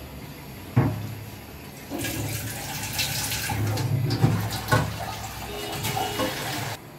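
Kitchen tap running into a stainless-steel sink, turned on about two seconds in and shut off suddenly near the end. A sharp knock comes just under a second in, and a few smaller knocks come while the water runs.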